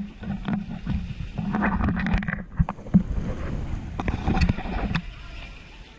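Water splashing and sloshing close to the microphone, with a heavy rumble and irregular knocks; it stops about five seconds in.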